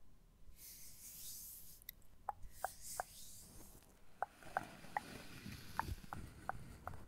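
Hair brush drawn close to the microphone: two soft airy swishes, then a run of small crisp ticks over a low rustle as the bristles work through the hair.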